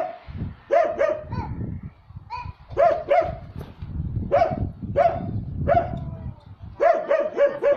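Dog barking repeatedly in short, loud barks, often in quick pairs.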